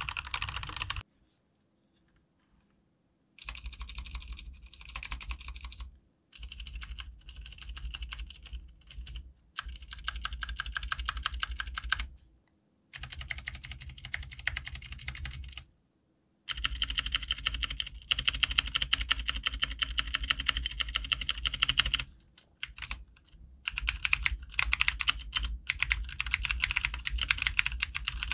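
Cherry G80-3000S TKL keyboard with clicky Cherry MX Blue switches and double-shot PBT keycaps being typed on fast, in several runs of rapid clicking broken by short pauses.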